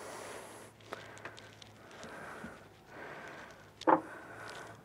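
A large rock is handled and lowered into a dry aquarium, then scraped and bedded into the gravel substrate, in several rustling, gritty patches. A short, sharp knock comes about four seconds in as the rock is set down.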